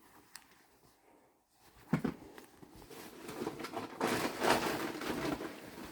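Rustling and crinkling as a pair of jeans is handled and turned over, starting with a soft knock about two seconds in and building to its loudest a little past the middle.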